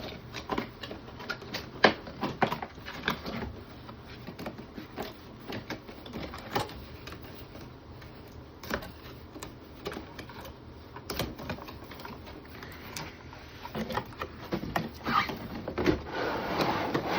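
A boxed figure's packaging being handled and opened by hand: scattered clicks, taps and crinkles, with a denser stretch of rustling near the end.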